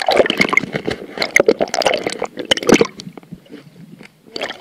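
Water bubbling and sloshing, heard through an underwater camera housing just below the surface. It is a dense crackle for about three seconds, then thins out.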